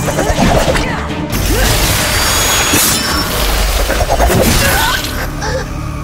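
TV action-scene soundtrack: dramatic score under sound effects, with several hard hits and crashes and a deep rumble that comes in just over a second in.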